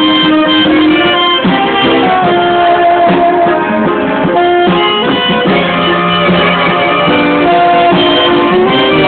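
A band playing music loudly, with melody notes shifting and held over a steady accompaniment.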